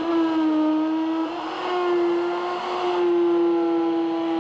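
Festool plunge router running at full speed, cutting a dado in plywood along a template. Its steady whine sags a little in pitch and turns rougher in the middle as the bit bites, then steadies again.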